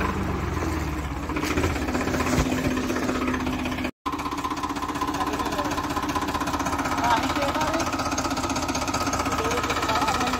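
Farm tractor diesel engines running steadily, with a brief dropout about four seconds in.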